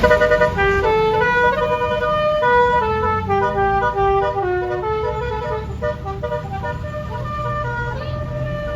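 Bus 'telolet' (basuri) multi-tone horn playing a tune of short stepped notes, over a low rumble. The tune stops shortly before the end.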